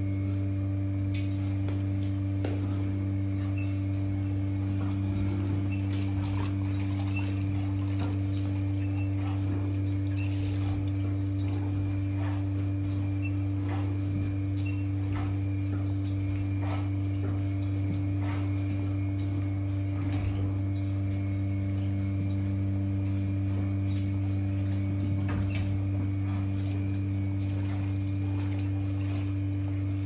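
Steady low hum, the loudest sound throughout, with scattered short scrapes and rustles as a hand tool works caked dirt off a cow's coat.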